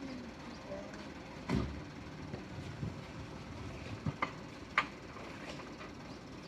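A handful of sharp knocks and clicks over a steady low background noise, the loudest a dull thump about one and a half seconds in, then a quick cluster of three about four to five seconds in.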